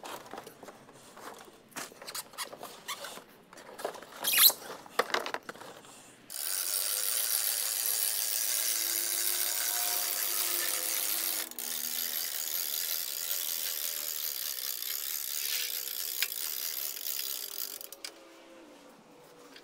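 Scattered knocks and clicks as a boxed air handler is settled onto a material lift, then the lift's hand-cranked winch ratcheting steadily as the load is wound upward, with a brief break about halfway and stopping shortly before the end.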